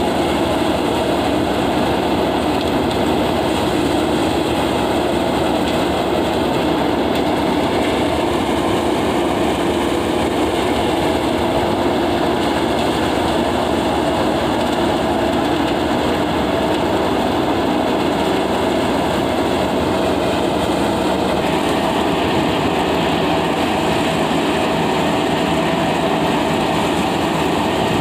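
Tractor-PTO-driven paddy thresher running steadily under load as rice bundles are fed in, its threshing drum and sieves making a loud, continuous mechanical din over the Mahindra tractor's engine. A higher tone within the noise stops about two-thirds of the way through.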